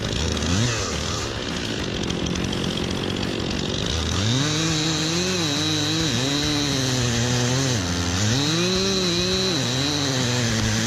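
Chainsaw running and cutting; from about four seconds in its engine pitch rises and falls repeatedly as the throttle and load change.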